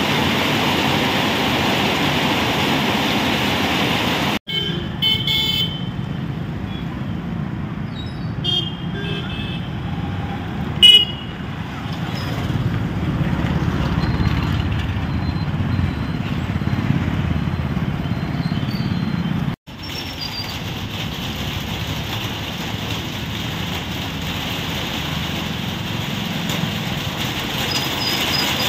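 Heavy rain falling steadily on a road. About four seconds in it cuts to street traffic: vehicle engines running, with several short horn toots, the loudest about eleven seconds in. Around twenty seconds in it cuts back to steady rain on the road.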